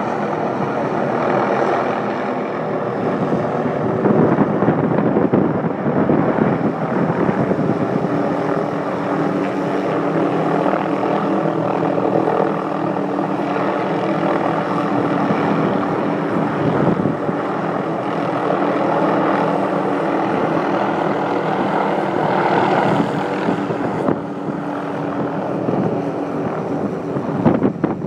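Helicopter hovering low overhead with a sling load on a long line: loud, steady rotor and engine noise with a constant hum under it.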